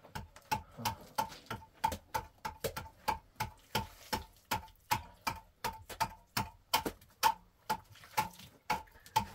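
Small hand tool striking and chipping at a mud-plastered wall in steady, rapid taps, about three a second, each with a short ring.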